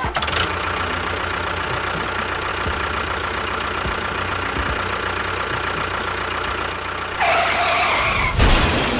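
An engine-like running sound, steady and fairly loud, with a fine rapid rhythm; about seven seconds in it changes to a brighter, higher sound, and a sharper surge comes near the end.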